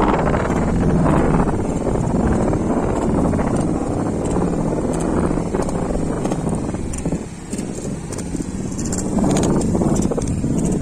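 Wind buffeting the phone's microphone in a steady rumble, over the wash of shallow sea surf.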